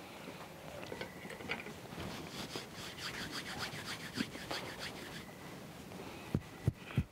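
A metal fork scraping and cutting through a tamale on a glazed clay plate, a soft rapid rasping, with three dull thumps near the end.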